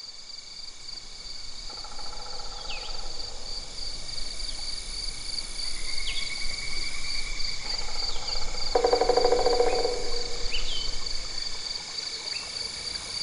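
Outdoor chorus of crickets, a steady high pulsing trill, fading in at the start. Short downward-sweeping bird chirps come every couple of seconds, and a few rapid lower pulsing trills sound over it, the loudest about nine seconds in.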